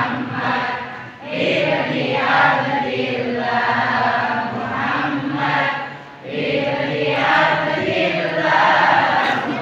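Many voices singing a chant together in long held phrases, broken by short pauses about a second in and again about six seconds in.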